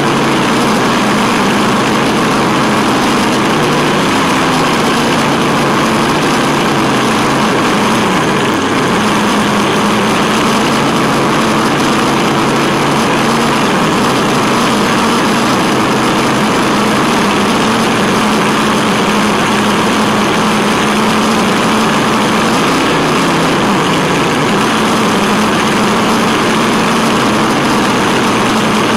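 Tamiya Wild Willy 2 RC truck driving: its motor and geared drivetrain whine steadily under a constant rolling and wind noise, with the pitch shifting a few times as the speed changes.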